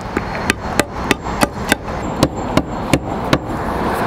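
Hammer striking the edge of a flat roof tile about ten times in a steady rhythm, roughly three blows a second, chipping a notch into the tile so it can sit over the raised lip of the metal tile pan.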